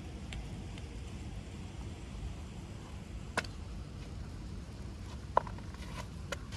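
Steady low outdoor rumble with a few sharp clicks or knocks; the loudest, about five seconds in, rings briefly.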